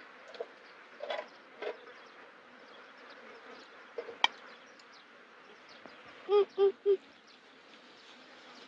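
A faint, steady buzz of insects, with a few soft clicks and knocks. About six and a half seconds in come three quick, short, pitched calls.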